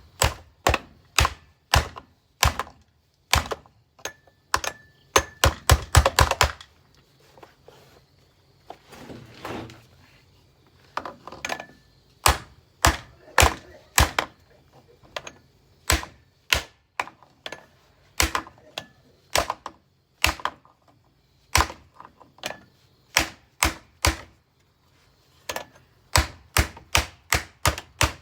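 Repeated hard knocks struck on a bagged vacuum cleaner's body, sharp and irregular, coming in quick runs of several blows with short pauses between.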